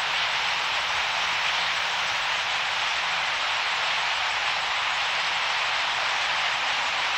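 Thousands of purple martins massed at a pre-migratory roost, their calls blending into one steady, dense wash of chatter.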